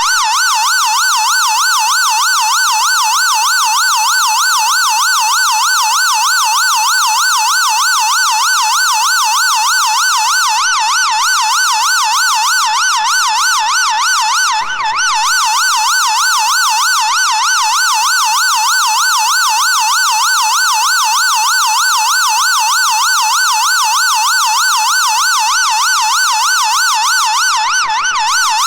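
Emergency siren sounding a fast yelp, its pitch sweeping up and down about three times a second without a break, with a brief dip in level about halfway through.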